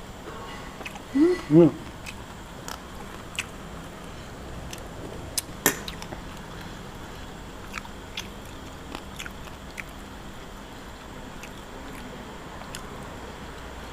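Someone eating boiled frog: scattered small clicks and crunches of chewing. There are two short pitched vocal hums about a second and a half in.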